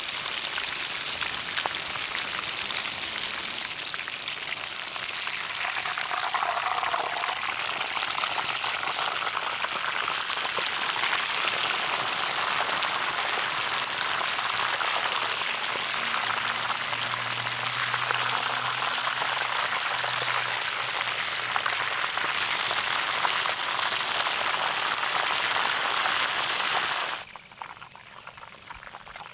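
Chicken frying in hot oil: a dense, steady sizzle that cuts off suddenly near the end.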